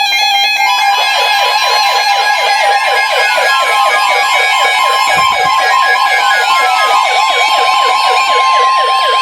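NOAA weather radios sounding a warning alert. The steady 1050 Hz weather-radio alarm tone starts about a second in and is layered over fast warbling alarm tones and a siren-like tone that falls again and again.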